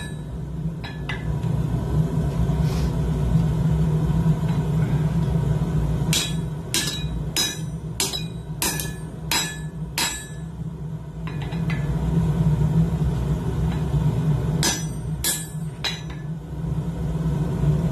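Hand hammer striking hot coil-spring steel on an anvil, a run of about eight ringing blows a little over half a second apart, then a pause and three more. A steady low rumble runs underneath.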